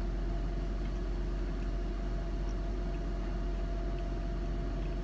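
Steady low hum of a car idling, heard from inside the cabin.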